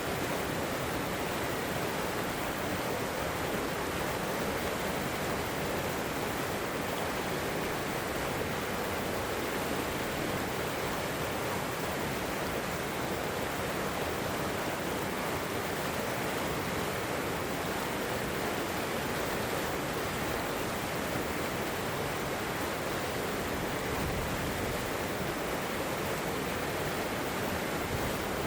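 River water rushing and splashing over rocks in a steady, unbroken wash of noise.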